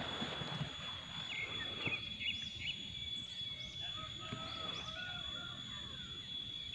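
Outdoor ambience of small birds chirping, with many short rising and falling notes, over a steady high-pitched whine and a low background rumble.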